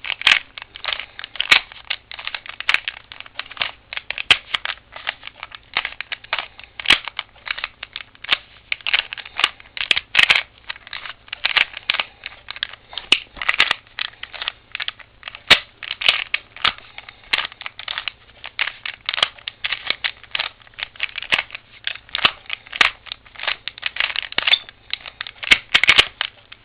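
A 3x3x3 Rubik's Cube being turned by hand: an uneven, rapid run of plastic clicks and scrapes as the layers are twisted, several turns a second.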